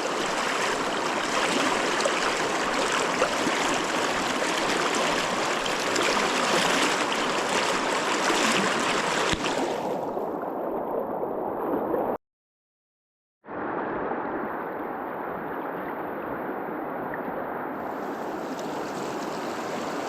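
Steady rush of river current around a wading angler. About nine seconds in the sound turns muffled, cuts out completely for about a second, then comes back muffled and clears again near the end.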